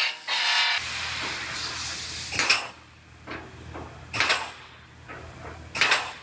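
Pneumatic air punch punching holes in the quarter-panel sheet-metal flange for plug welds. Three sharp punches about two seconds apart, each followed by a short hiss of air.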